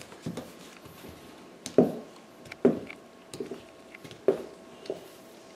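A crawling baby's hands and new shoes knocking and slapping on a hardwood and tile floor: a few irregular knocks about a second apart, with softer taps between.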